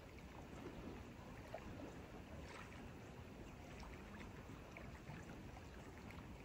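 Faint lakeshore ambience: small ripples lapping gently at the grassy bank, a steady low wash with no distinct events.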